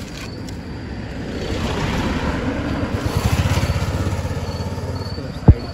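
A motor vehicle's engine passing on the road, its low pulsing note growing louder and then fading away. A single sharp knock sounds near the end.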